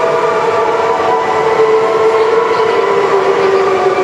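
Industrial roll-to-roll sublimation rotary heat press running: a steady mechanical whine of several held tones that drift slightly lower in pitch, over a continuous noisy hum.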